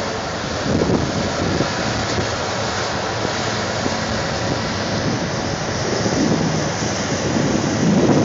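Wind buffeting the microphone over the steady running of hydraulic excavators' diesel engines, the gusts growing louder near the end.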